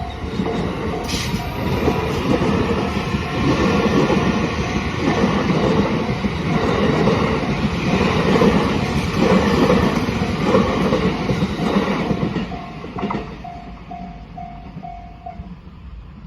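A train passing over a Japanese level crossing: a loud rumble and clatter of wheels on the rails for about twelve seconds, fading near the end. The crossing's warning bell rings about twice a second throughout and stops shortly before the end.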